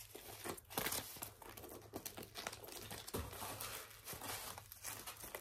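Packaging crinkling and rustling as it is handled, with many small crackles and clicks.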